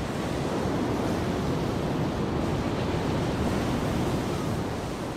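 Ocean surf breaking and washing over coastal rocks: a steady, dense rush of crashing waves.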